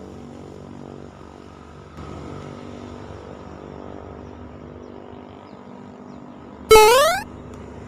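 A motor engine running steadily. Near the end there is a short, loud tone that rises in pitch for about half a second.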